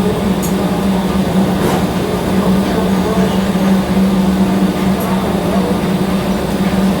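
TIG welding arc buzzing steadily, a constant low hum with a hiss over it.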